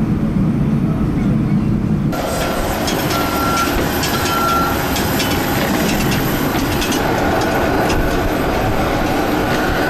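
Steady low rumble inside an airliner cabin as it taxis after landing. About two seconds in this cuts abruptly to steady outdoor airport apron noise with scattered clicks and three short beeps.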